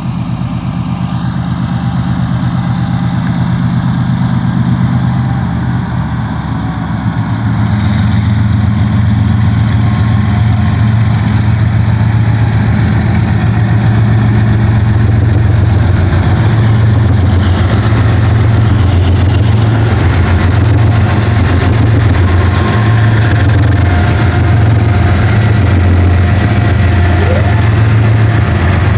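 Diesel-electric locomotives at the head of a BNSF freight train approaching and passing close by: a loud, steady, deep engine drone that grows louder about seven seconds in.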